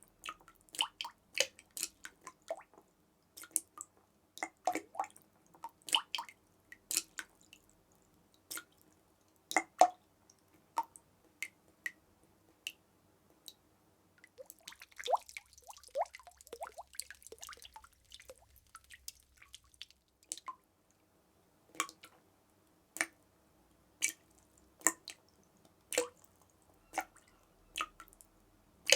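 Water drops dripping and plinking, each drop a short sharp click with a brief pitched ring. The drops fall irregularly, thicken into a quick patter with a faint splashy hiss in the middle, then settle to about one drop a second near the end.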